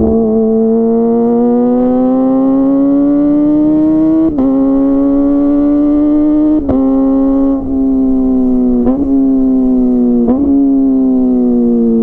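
Kawasaki ZX-25R's 250 cc inline-four running through an aftermarket DX Generation Pro Race full-system exhaust, riding along with a steady engine note. The pitch rises slowly for the first few seconds, is broken by brief dips several times, and falls away near the end as the engine slows.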